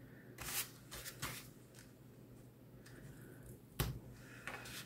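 Hands handling paper cardstock and double-sided adhesive tape: a few faint, short rustles and taps, the loudest about four seconds in.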